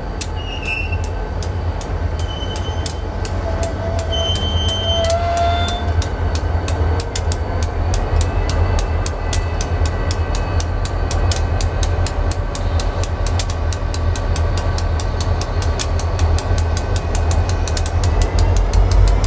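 Freight train rolling past: a steady low rumble under a regular clickety-clack of wheels over rail joints, the clicks coming faster as it goes. A few brief wheel squeals sound in the first few seconds.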